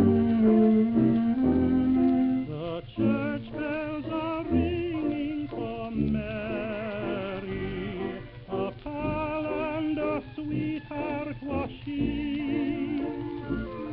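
A 1928 Victor Orthophonic 78 rpm record of a dance-orchestra waltz playing back, with its sound cut off above the upper midrange. The full band plays loud, steady chords for the first couple of seconds, then a softer passage follows, carried by a wavering vibrato melody over the accompaniment.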